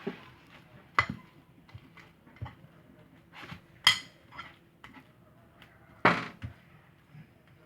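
A mixing utensil clinking and knocking against a bowl as thick slime is stirred. There are scattered small taps, with sharper knocks about one, four and six seconds in.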